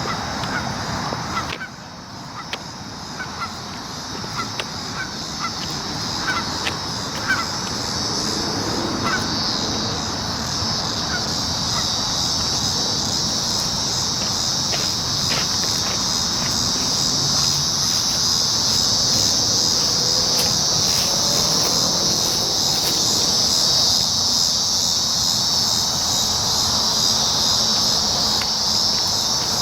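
A chorus of cicadas making a steady high buzz that grows louder and stays loud through the second half. Over it, in roughly the first ten seconds, comes a string of short calls.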